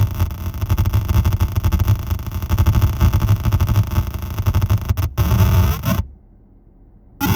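Error Instruments Data Synth putting out harsh, glitchy digital noise over a heavy low rumble, fluttering rapidly. It cuts out almost completely for about a second near the end, then comes back with a different, sweeping texture.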